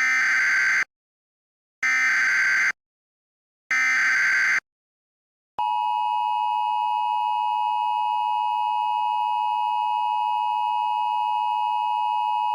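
Emergency Alert System SAME header: three short bursts of digital data tones, encoding a civil danger warning. About five and a half seconds in, the steady two-tone EAS attention signal (853 and 960 Hz) starts and holds.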